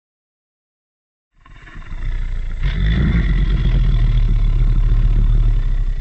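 Custom-made Tyrannosaurus rex roar sound effect: a deep roar that starts about a second and a half in, swells over about a second and holds for around four seconds before cutting off at the end.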